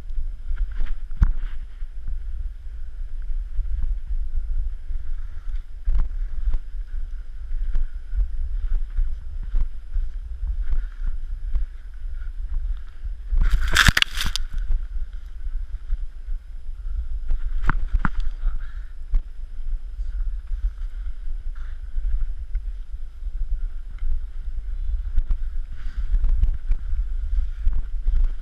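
Snowblades (short skis) sliding down a snowy trail, heard as a steady low rumble of wind on the camera's microphone with scattered clicks and knocks. About halfway through comes a short loud rush as snow sprays up around the skis.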